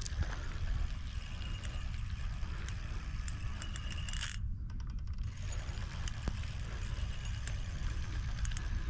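Light metallic clicks and rattles of fishing tackle being handled while a hook is changed, over a steady low rumble.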